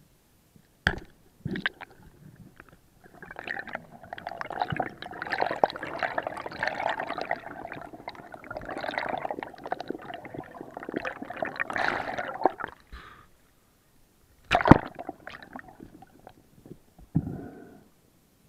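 Underwater sound heard through a camera housing: a couple of sharp clicks in the first two seconds, then about ten seconds of dense bubbling and rushing water as air bubbles stream past. A loud sharp knock comes about fifteen seconds in, and a shorter bubbly rush follows near the end.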